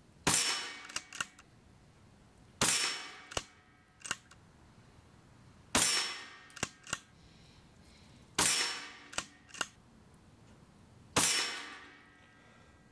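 Daystate Delta Wolf PCP air rifle firing five shots, one every two to three seconds, each a sharp crack with a short fading tail, followed by a couple of smaller clicks.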